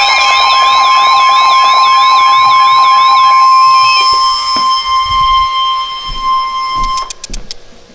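Emergency alert tones sounding together: a loud steady high tone with a fast, repeating warbling alarm layered over it. The warble stops about three seconds in. The steady tone cuts off about seven seconds in, followed by a few sharp clicks.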